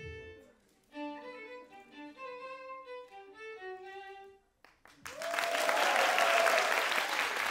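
Solo violin playing a melody of separate bowed notes, stopping about four and a half seconds in. An audience then breaks into loud applause and cheering.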